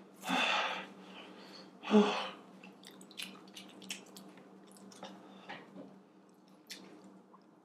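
A person huffing out two heavy breaths through the mouth, about a second and a half apart, then faint wet mouth clicks and smacks, his mouth burning from extremely spicy fire noodles he is struggling to swallow.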